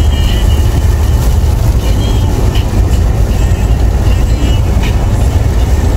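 Car driving on the road, heard from inside the cabin: a loud, steady low rumble of engine and tyre noise.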